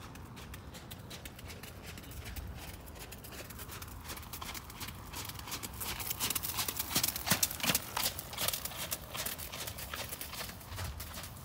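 Horse's hoofbeats on wet arena footing, a quick run of knocks that grows louder as the horse passes close by a little past halfway, then fades as it moves away.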